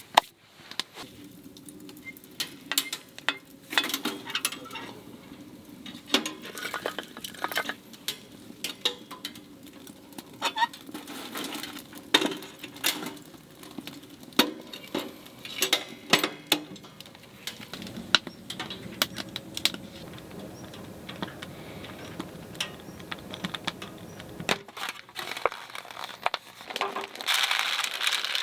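Metal cookware and utensils clinking and knocking in many small, irregular hits over a steady low hum; the hum cuts off about three seconds before the end, and a louder rustling follows.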